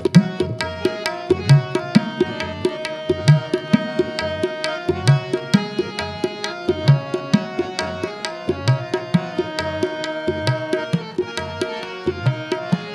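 Harmonium and tabla playing an instrumental interlude of Sikh gurbani kirtan. Held harmonium reed notes carry the melody over a quick run of tabla strokes, with a deep bass-drum stroke about every two seconds.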